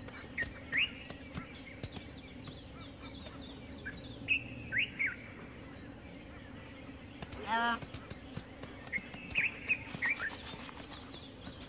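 Wild birds chirping with short sweeping calls in three clusters, near the start, around four to five seconds in and again after nine seconds. About seven and a half seconds in comes one short pitched animal call, over scattered light clicks and a steady low hum.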